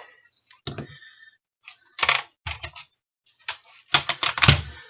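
Clicks and clacks of a graphics card's parts being handled and pulled apart: a series of sharp, irregular knocks, the heaviest bunch near the end.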